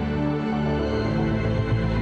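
Instrumental background music with sustained tones; a deeper bass note comes in about a second in.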